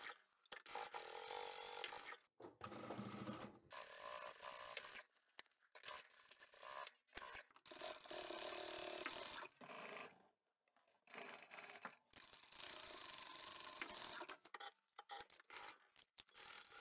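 Very faint rubbing and rustling of fabric being handled and fed under a sewing machine's presser foot, broken by several short silent gaps.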